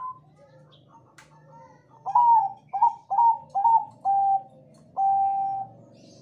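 Zebra dove (perkutut) cooing: after a short pause, five quick notes, each jumping up then sliding down, followed by one longer held note.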